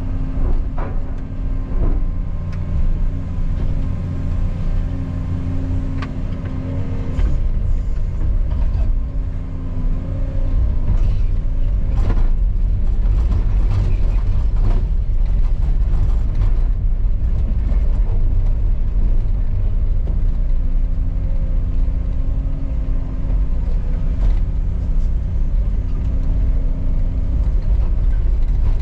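Caterpillar 335 excavator's diesel engine running under load, with scattered sharp knocks and clanks. The engine gets louder about ten seconds in and then holds steady.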